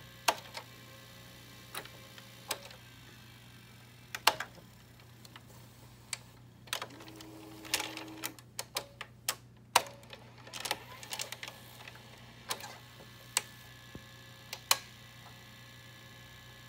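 General Electric VG-7910 VCR's tape transport mechanism clicking and clunking irregularly as it is asked to play a loaded cassette, over a steady low hum, with a brief motor whir about seven seconds in. The deck is faulty and under repair.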